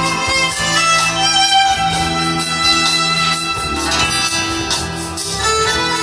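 Instrumental music with long held notes.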